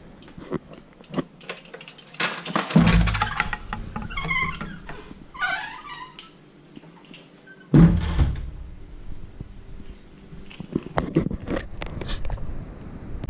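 A cat meowing twice, the second call falling in pitch, over knocks and rustling from a handheld camera being carried around, with two heavy thumps, one about three seconds in and another near eight seconds.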